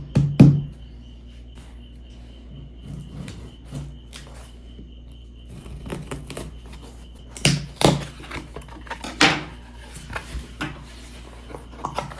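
Cardboard box and packaging being handled: a couple of sharp knocks right at the start, then scattered light taps and scrapes, with a louder run of knocks about seven to nine seconds in.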